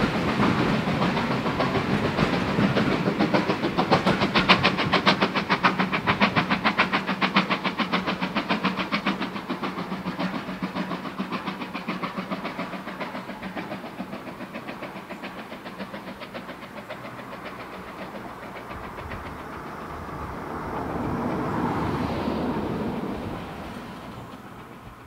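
A GWR Large Prairie 2-6-2 tank steam locomotive and its train running away from the listener, with a fast, even beat that fades steadily. The sound swells briefly about twenty seconds in, then dies away.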